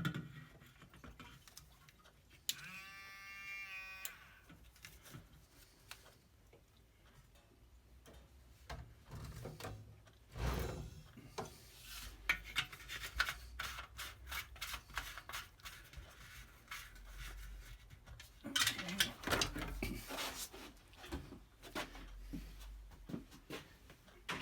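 Scattered clicks, knocks and rubbing from handling a fuel pump and the diesel heater's fuel tank while diesel is added. There is a brief wavering squeak about three seconds in, and the knocks come thickest near the end.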